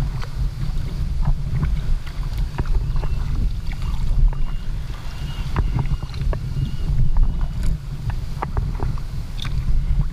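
Sea kayak being paddled: paddle blades dipping and water splashing and dripping in short, irregular clicks and splashes, over a steady low wind rumble on the action-camera microphone.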